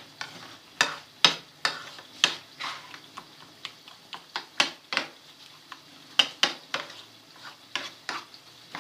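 A utensil stirring and mashing a thick paste of khoya and cooked cornflour to work out the lumps, with irregular clicks and scrapes against the dish about twice a second.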